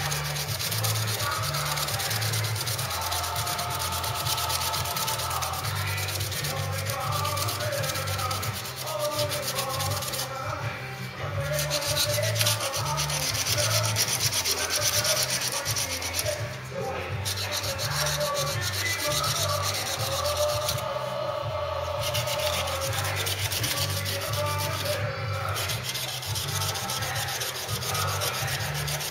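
Sandpaper held against a pen blank spinning on a lathe: a steady hissing rasp that drops out briefly four times.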